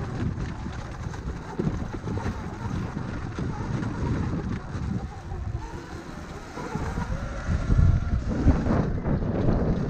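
Wind rushing over the microphone and rumbling ride noise from a Sur-Ron electric dirt bike moving along a trail, growing louder about eight seconds in.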